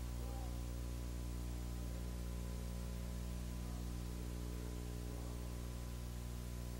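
Steady electrical mains hum with a ladder of overtones, under an even hiss, constant throughout. Faint indistinct traces lie beneath it.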